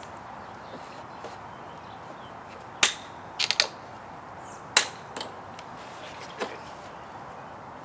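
A handful of sharp clicks and knocks at irregular intervals over a steady hiss. The two loudest come about three and five seconds in.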